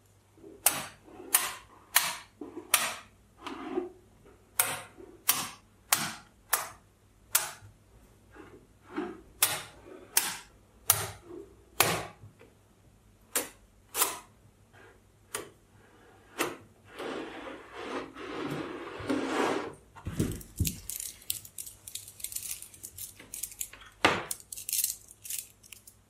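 Mini magnetic balls snapping together with sharp clicks, about two a second, as they are pressed into place. Later comes a few seconds of continuous rattling as balls grind against each other, a dull thump, then a fast clatter of many clicks.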